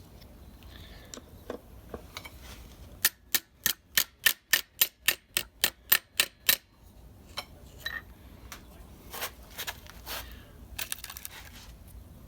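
Small hammer tapping a brass rivet, a quick even run of about fifteen sharp strikes at roughly four a second, setting the rivet that holds a wooden liner to a Model T transmission band. Scattered lighter taps and clicks follow.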